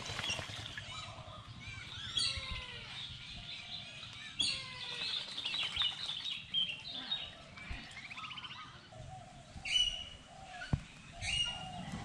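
Birds chirping and calling, many short sweeping notes overlapping, with two louder, sharper calls near the end.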